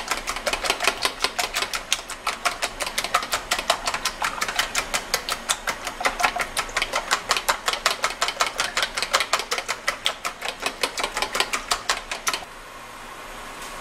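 Raw eggs beaten with a metal utensil in a clear plastic tub: a fast, regular clicking of about six strokes a second against the tub. It stops suddenly near the end, and a steady hiss is left.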